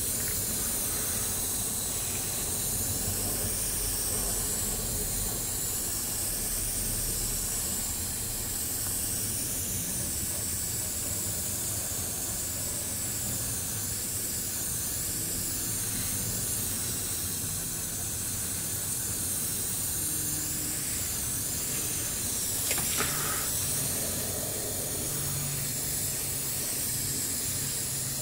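Gravity-feed airbrush spraying paint: a steady hiss of compressed air that wavers in strength as the trigger is worked. One brief tap about three-quarters of the way through.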